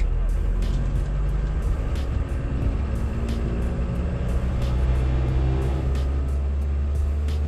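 VW Mk1 Rabbit's turbodiesel engine running at low revs, heard from inside the cabin as a steady low drone.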